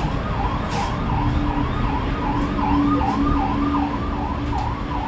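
Siren of a passing emergency vehicle, wailing rapidly up and down about two and a half times a second, with a steady lower tone from about a second in and a low rumble underneath.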